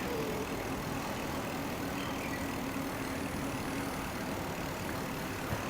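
Steady street traffic noise with a faint engine hum from a nearby motor vehicle that fades out about halfway through.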